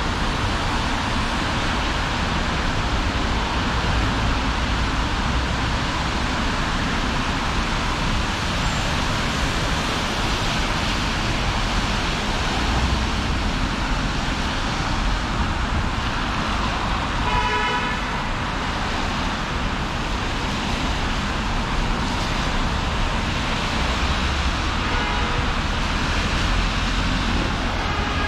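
City street traffic: steady road noise from passing vehicles. A vehicle horn honks once about two thirds of the way through, with fainter honks near the end.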